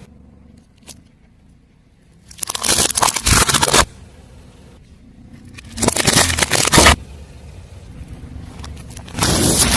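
Car tyre rolling over and crushing crunchy objects: three loud bursts of crackling and crunching, each lasting about a second, with a low car engine rumble between them.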